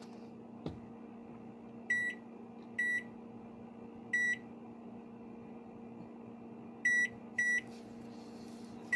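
Hamilton Beach microwave keypad beeping: about six short, identical high beeps at uneven intervals as its buttons are pressed, over a low steady hum. The keypad still beeps, so the hold-a-button mute hack has not worked.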